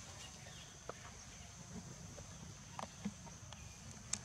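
Faint, quiet outdoor sound with a few soft, scattered crackles of dry leaves under a walking macaque's feet, over a thin steady high tone.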